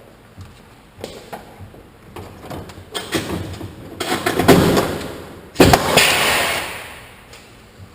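Pneumatic Huck fastener tool setting a lockbolt: a few knocks as it is fitted, a rising burst of air and tool noise, a sharp snap about five and a half seconds in as the pin breaks off, then a hiss of air dying away.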